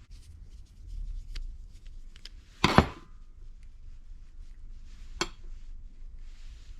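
Small metal carburetor parts being handled on a workbench: light clicks and clinks, with one louder clink that rings briefly about three seconds in.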